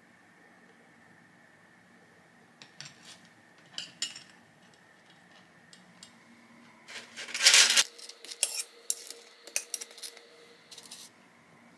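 Metal tongs clicking and scraping against a ceramic plate as baked apple hand pies are set down and arranged on it: a few light clicks, a louder scrape lasting just under a second about seven seconds in, then a quick run of clinks.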